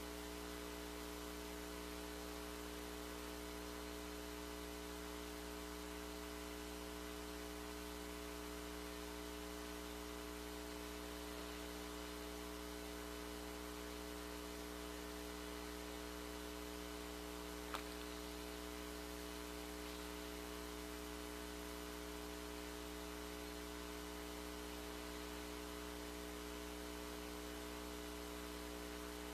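Steady electrical hum made of several constant tones, over a faint hiss. There is a single faint click about eighteen seconds in.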